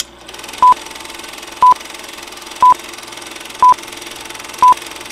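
Film-leader countdown sound effect: five short beeps of the same high pitch, one each second, over a steady film hiss.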